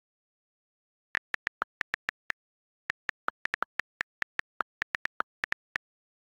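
iPad on-screen keyboard click sounds as text is typed: about two dozen quick taps in irregular runs, a few of them lower in pitch for the space bar.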